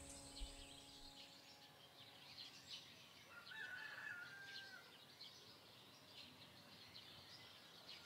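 Faint chirping of small birds, with a rooster crowing once about three and a half seconds in.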